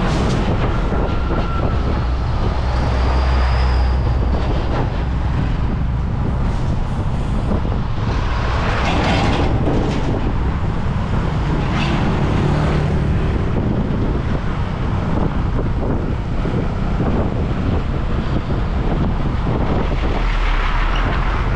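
Motor scooter riding in heavy traffic: a steady low rumble of engine, tyre and wind noise, with large trucks running close alongside. There are louder rushes of noise about nine and twelve seconds in.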